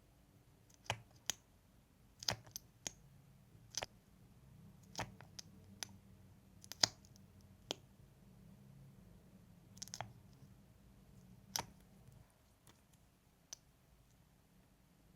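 ASMR mouth sounds close to the microphone: a string of sharp, wet lip smacks and tongue clicks at irregular intervals, roughly one a second.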